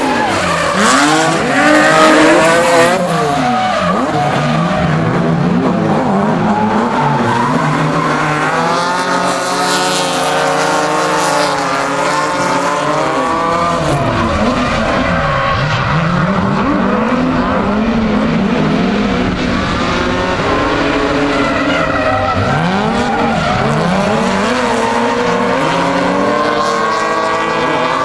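Drift cars' engines revving up and down again and again as they slide, with tyres squealing. The loudest burst comes about two seconds in.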